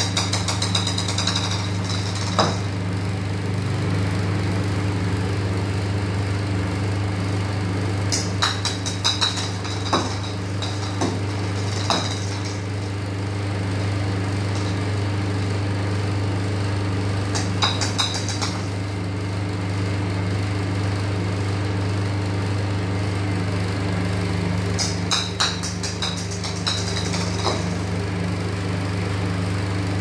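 Steady electric hum of a motor or appliance. About every eight seconds a short cluster of rapid, high clicking sounds over it, and a few light single knocks.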